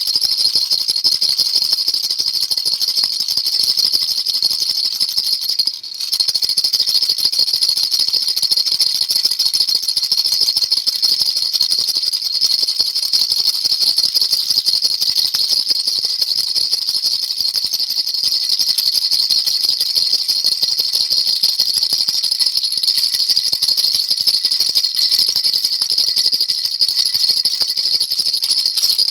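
Baby rattle shaken fast and without let-up, a dense, high jingling rattle, with a brief break about six seconds in.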